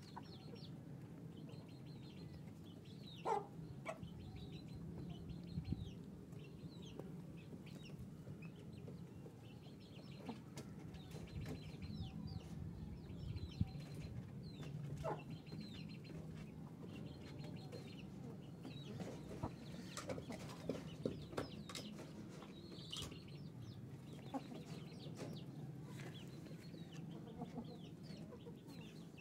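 Chickens clucking softly, with many short scattered calls and a few louder ones, over a steady low hum.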